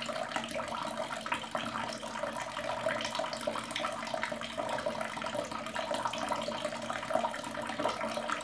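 Water running steadily from an open wall tap and splashing down onto the floor below.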